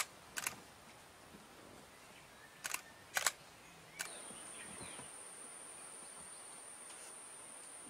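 Camera shutter clicks: two quick clicks at the start and two more about three seconds in. About four seconds in, a steady high-pitched insect trill, like a cricket's, starts and holds.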